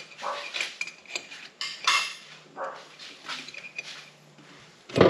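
Metal parts clinking and scraping as a snap ring is worked up into a hydraulic lift cylinder, with a loud sharp knock near the end.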